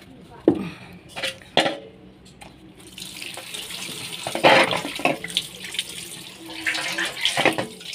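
Water from a tap pouring into a stainless steel bowl as a whole plucked chicken is rubbed and rinsed in it by hand, with splashing that swells and falls as the hand works. A few sharp knocks come in the first two seconds, before the water starts running about three seconds in.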